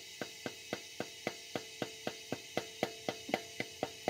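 Light, even metal taps on a 12-point socket, about four a second, driving a new exhaust valve stem seal down over the valve stem until it sits flush with the cylinder head. Each tap is a short click with a slight ring.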